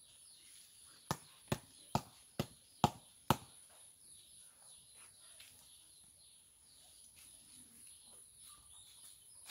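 A hand slapping the side of a leather football spinning on a fingertip to keep it turning: six sharp slaps about half a second apart, starting about a second in.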